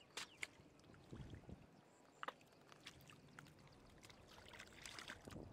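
Faint splashing and squelching of hands working through mud and shallow water, with a few short sharp splashes and a busier stretch near the end.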